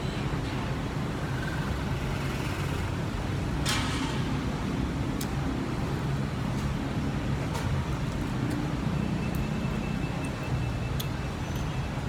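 Steady low rumble of city road traffic, with a few faint, light clicks from prawns being peeled by hand.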